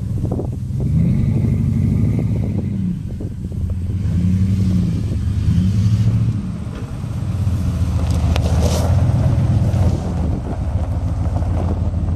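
2003 Dodge Ram 1500's 5.7-litre Hemi V8 running, its pitch rising and falling several times as the engine is revved and let back down.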